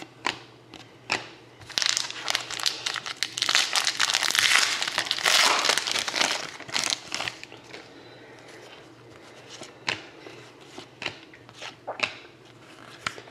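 Trading card pack wrapper being crinkled and torn open, a dense crackly rustle for about five seconds, followed by scattered light clicks and taps.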